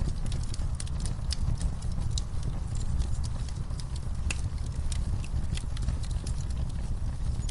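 Wood fire in a fireplace crackling, with irregular sharp pops and snaps, several a second, over a steady deep rumble of flame.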